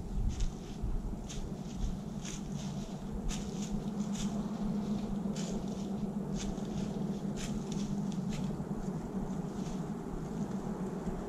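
Rustling steps in dry leaves on the forest floor, about one a second, over a steady low hum.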